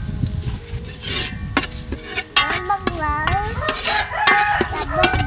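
Metal ladle stirring soup in a large aluminium pot, scraping and clinking against the metal, with high, wavering calls over it in the second half.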